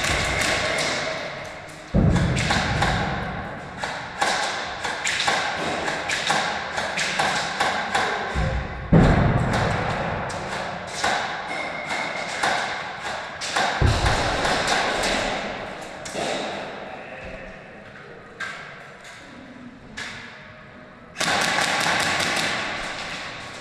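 Airsoft guns firing, a dense run of quick cracks and clicks from shots and BBs striking walls and barriers. Heavy thuds come about 2, 9 and 14 seconds in.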